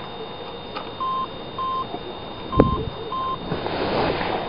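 A short electronic beep repeating four times at uneven spacing, with a single sharp thump about two and a half seconds in and a rustling hiss near the end.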